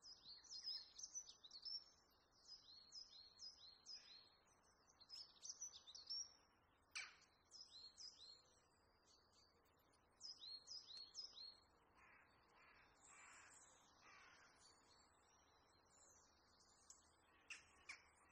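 Faint birdsong: birds chirping in quick series of high, downward-sliding chirps, with a few harsher, lower calls about twelve to fourteen seconds in.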